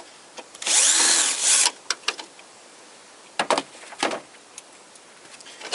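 Bosch cordless screwdriver running for about a second, its pitch rising and then falling, as it backs out a bolt holding the car's grille. Several sharp clicks and knocks follow.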